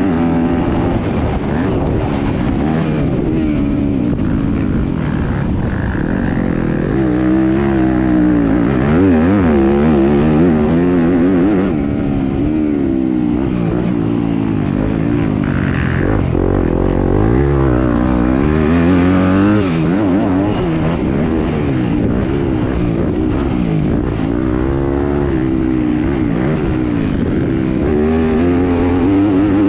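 Yamaha YZ250F's 250cc four-stroke single-cylinder engine revving hard and backing off over and over as the motocross bike is ridden round a dirt track, its pitch climbing and dropping with the throttle and gear changes.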